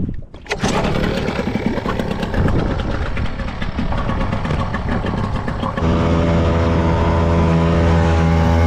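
Small outboard motor on an inflatable dinghy, pull-started and catching on the first pull about half a second in, then running with a rapid rattle. A little before six seconds the sound switches abruptly to a steady engine drone as the motor runs underway.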